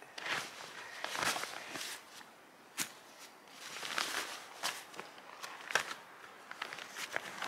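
Rustling of a fabric stuff sack and a canvas backpack being handled and unpacked, in several short swells, with a few sharp clicks among them.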